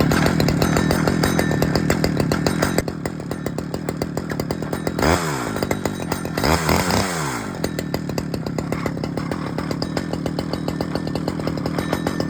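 Stihl 009 two-stroke chainsaw engine running at idle, revved up and back down about five seconds in, then again a second and a half later.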